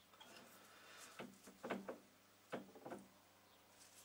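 Near silence, with a few faint taps and clicks from hands working at the metal lathe, in two small clusters in the middle.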